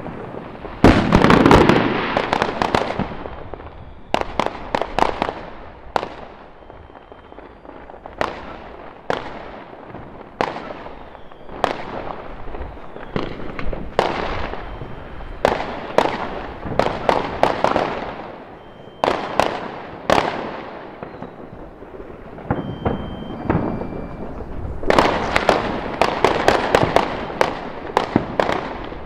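Many fireworks going off at once across a town: a near-continuous run of bangs and crackles, each echoing away, with dense volleys about a second in and again near the end.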